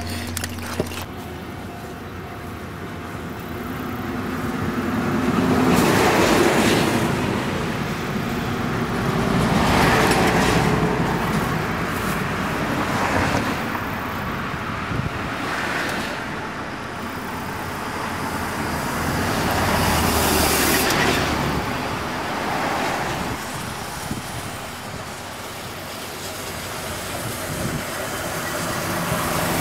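Rushing noise of road vehicles passing, swelling and fading every three or four seconds. Near the end the sound of the approaching C58 steam locomotive begins to rise.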